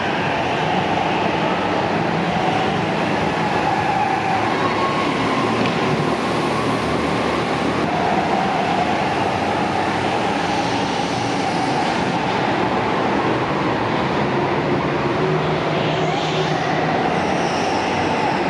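Several go-karts running laps on an indoor track: a steady, loud mechanical drone of kart engines whose pitch drifts up and down as karts speed up, slow and pass.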